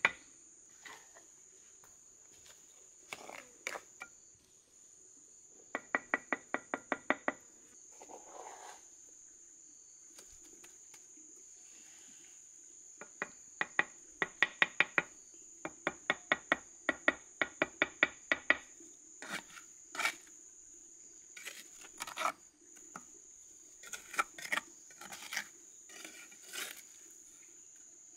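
Bricklayer's trowel handle tapping bricks down into fresh mortar in quick runs of about five taps a second, then scattered knocks and scrapes of the trowel working the mortar. Insects drone steadily at a high pitch throughout.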